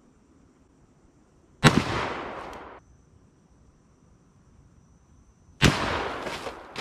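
Two shots from a Smith & Wesson 460 XVR revolver firing Hornady 225 grain FTX loads, about four seconds apart. Each is a sharp, very loud crack that rings off over about a second. A faint steady insect buzz runs between them.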